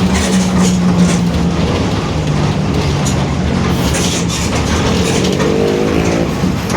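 Mercedes-Benz OF-1721 BlueTec 5 city bus under way: its front-mounted diesel runs with a steady drone from the differential, which growls ("roncando"), and scattered clicks. About five seconds in, a whine rises in pitch as the bus picks up speed.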